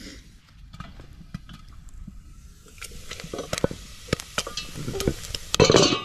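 Food sizzling in a metal pot over a wood campfire, with the fire crackling and scattered sharp clicks that grow busier from about halfway through. A loud brief clatter comes just before the end.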